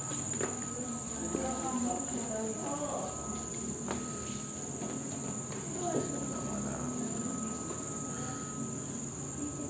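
A steady, unbroken high-pitched insect-like buzz over a soft murmur of room noise, with a couple of light knocks.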